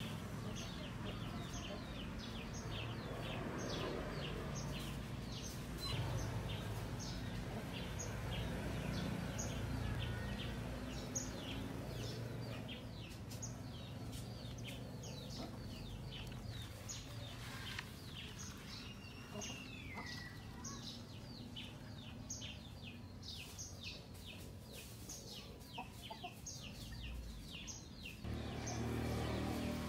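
Birds chirping over and over, a few short calls a second, over a low steady rumble; one longer call rises and falls about two-thirds of the way through.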